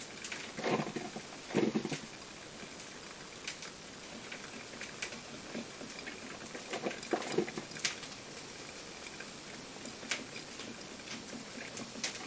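Krups XP1500 coffee maker brewing: irregular ticks and pops, with a few short gurgles near the start and again about seven seconds in.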